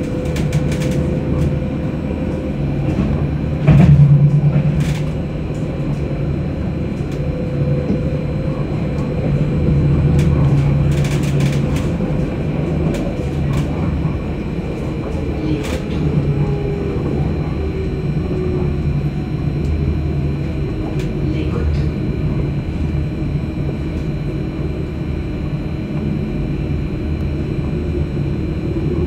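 Paris tram line 2 running at speed, heard from inside the car: a steady rumble of wheels on rail with scattered clicks and knocks, and a louder knock about four seconds in. A faint whine drifts down in pitch midway.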